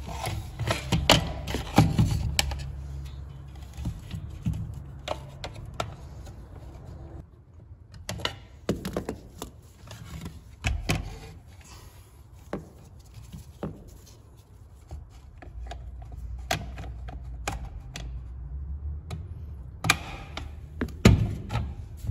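Irregular clicks, taps and knocks of the plastic housing and small metal parts of a manual car side mirror being handled and fitted together, including the adjustment linkage and the mirror glass, over a low steady hum. The clicks come thickest in the first couple of seconds, and there is a sharp click near the end.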